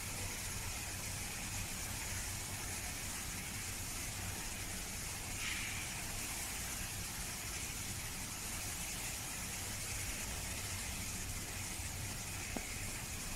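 Steady background hiss with a low hum underneath, with a brief higher-pitched sound about five seconds in and a single click near the end.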